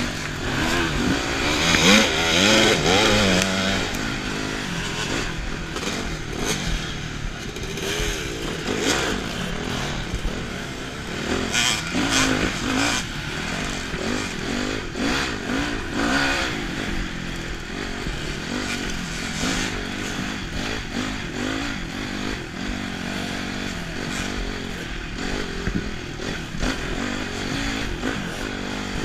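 Dirt bike engine revving up and down as the bike is ridden over a rocky trail, the pitch rising and falling again and again, loudest about two seconds in.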